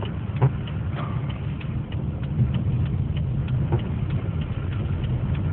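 Road noise inside a moving car: a steady low rumble of engine and tyres, with scattered light ticks and clicks.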